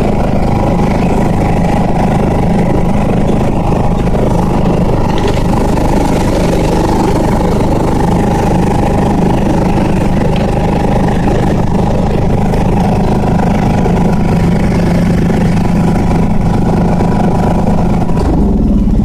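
Engine of a Viking ride-on lawn mower running steadily as it is driven, its note shifting lower shortly before the end.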